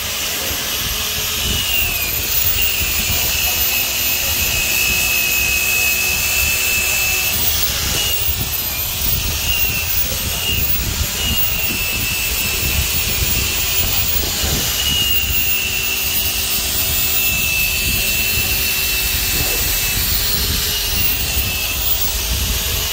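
Pneumatic orbital sander running with 80-grit pads: a steady high whine, wavering slightly in pitch, over a continuous hiss. It is sanding the old glue off the rubrail seam on a hypalon tube to prepare it for fresh glue.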